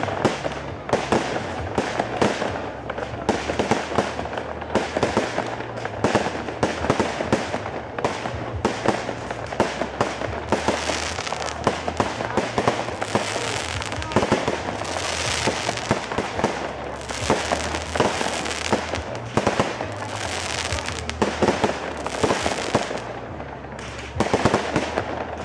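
Aerial fireworks exploring a display: a dense, continuous run of sharp bangs and crackling stars, easing briefly just before the end.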